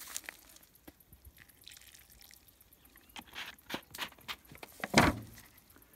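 Water poured and dribbled from a plastic soda bottle onto loose dug-out soil, wetting it into mud, with scattered drips and small handling clicks of the bottle. A louder knock about five seconds in.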